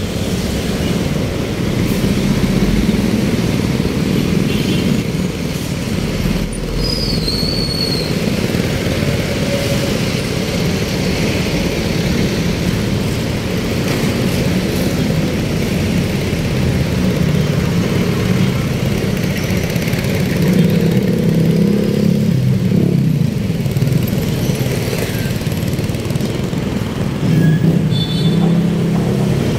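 Steady road traffic, with car and motorcycle engines running and passing close by. The traffic swells louder a couple of times near the end.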